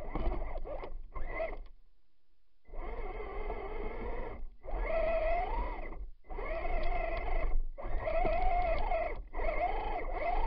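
A Traxxas Stampede 2WD RC truck's electric motor and drivetrain whining in repeated throttle bursts, about five pulls each over a second long with short gaps between, the pitch rising and falling with motor speed. Wind and vibration rumble on the truck-mounted camera underneath.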